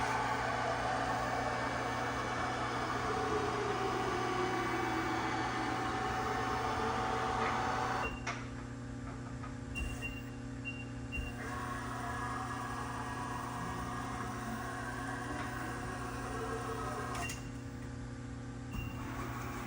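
TRAK DPM CNC bed mill's axis servo drives moving the table, heard as two stretches of motor whine and rushing noise over a steady electrical hum: the first about eight seconds long with a falling whine, the second a few seconds later with a rising whine. A quick run of short high beeps about ten seconds in.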